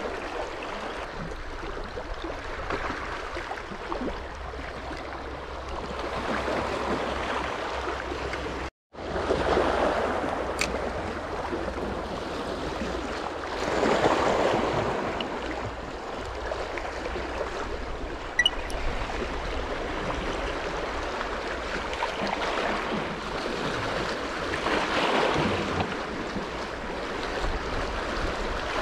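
Sea waves washing against the shore as a steady rush that swells every few seconds. The sound cuts out for a moment about nine seconds in.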